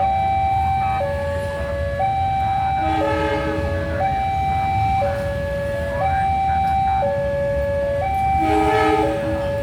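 Railway level-crossing warning alarm sounding an alternating two-tone high-low signal, about a second per tone, warning that a train is at the crossing. Under it runs the low rumble of a passing train, and short horn blasts sound about three and eight and a half seconds in.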